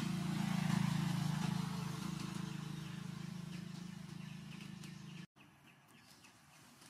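A motor vehicle's engine passing by: a steady low hum that is loudest about a second in, then fades, and is cut off abruptly about five seconds in, leaving only a quiet outdoor background.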